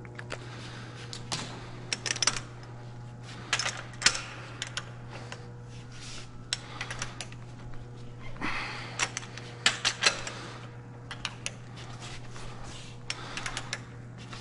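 Long torque wrench being fitted and ratcheted on engine main bearing cap bolts: irregular clicks and metallic clinks coming in short clusters, over a steady low shop hum.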